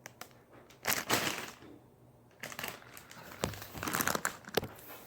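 Plastic squishy packaging crinkling as it is handled, in a burst about a second in and again in a longer run from about two and a half seconds on.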